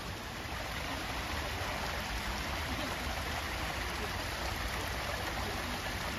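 Steady rushing hiss of water, like rain or running water, with a low, uneven rumble underneath.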